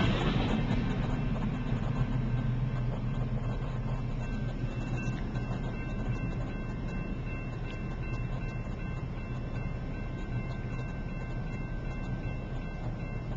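Freight train rumble dying away as the train moves off past the crossing, with a steady ringing from the grade-crossing warning bell, heard from inside a car.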